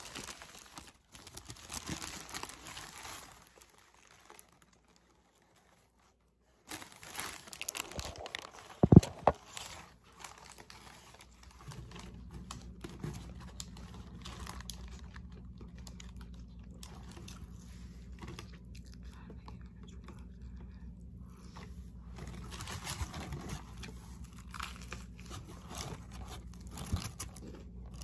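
Paper sandwich wrapper crinkling and rustling as it is unfolded by hand, in bursts, with one sharp, loud crackle about nine seconds in. A steady low hum sets in about twelve seconds in.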